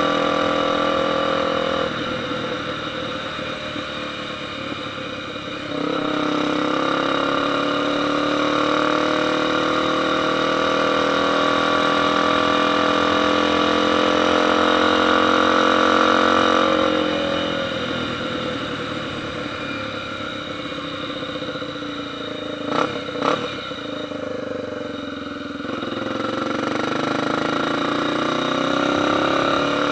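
Motorcycle engine running at held revs, dropping back and coming up again in stages. Two sharp pops sound about 23 seconds in.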